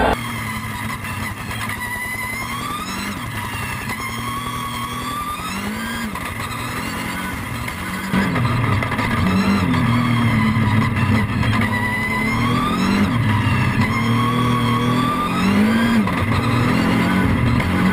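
Dacia Duster No Limit race car's engine pulling hard through the gears, its revs climbing and dropping at each shift. It gets louder about eight seconds in.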